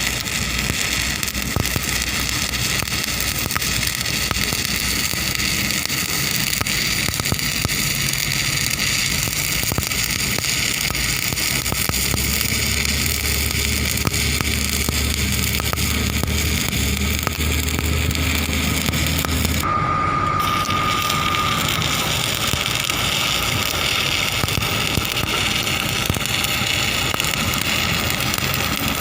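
Electric arc (stick) welding: the arc crackling and hissing steadily with dense fine spitting. A low hum runs under it for a while in the middle, and the sound changes abruptly about two-thirds through, after which a thin steady whine sits under the crackle.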